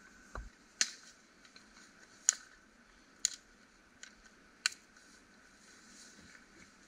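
A knife taps on a wooden board right at the start. Then come five or six sharp, dry cracks about a second apart: thin dead twigs snapped by hand for kindling.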